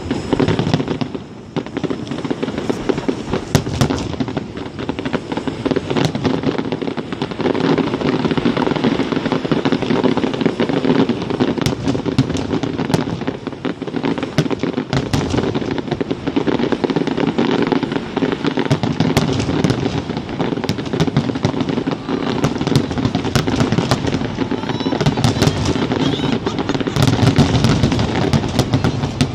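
Aerial fireworks shells bursting in a rapid, near-continuous barrage, the many overlapping bangs merging with the crackle of the bursts.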